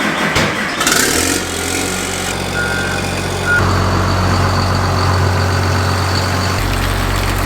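Self-propelled crop sprayer's engine idling steadily, its low hum growing louder about halfway through, with a couple of short high beeps a little before that.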